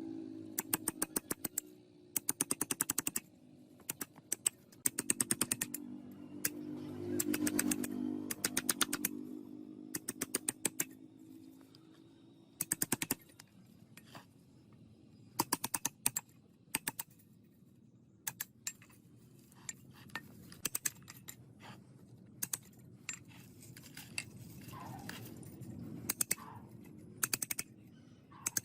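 Repeated bursts of rapid, sharp clicking, each run lasting up to about a second, over a low hum that weakens about twelve seconds in.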